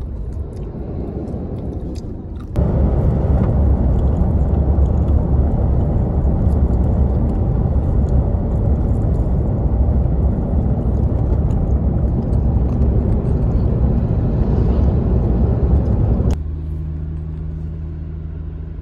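Vehicle driving along a highway: a steady road and wind rumble that gets much louder about two and a half seconds in. It cuts off abruptly near the end, leaving a quieter steady engine drone with a low hum.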